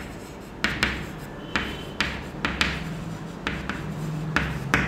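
Chalk writing on a chalkboard: about a dozen short, sharp chalk strokes and taps as letters are written.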